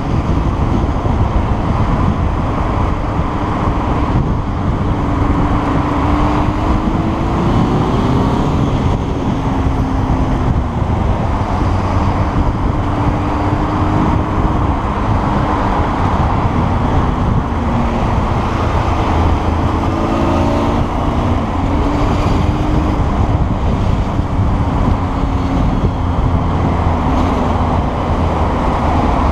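Motorcycle engine running at low road speed, its pitch rising and falling several times with the throttle, under heavy wind noise on the camera microphone.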